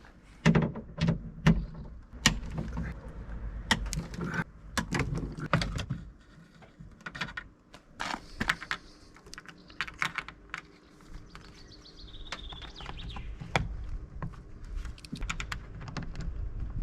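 Irregular clicks, taps and light knocks of plastic and metal parts being handled on a car door while a broken side mirror is unbolted and a new one fitted. A faint steady hum sits underneath in the second half.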